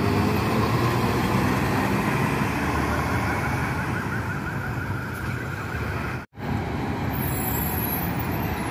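Diesel coach buses passing close by: a steady engine and road noise as one bus pulls away, then another bus's engine after a brief dropout about six seconds in.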